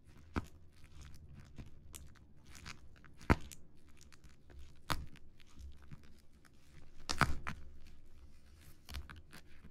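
Fingertips tapping and scratching on a plastic-wrapped cardboard box, with crinkles of the film and a few irregular sharper taps.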